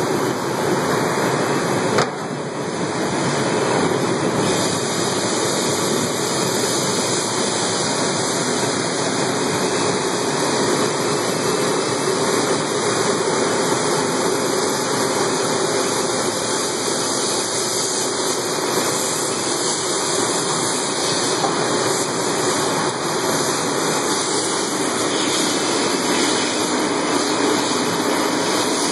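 Steady rush of churning water in a stainless-steel immersion washing tank for aloe leaves, kept turbulent by recirculation, with water spraying in the washing line. A single short knock about two seconds in.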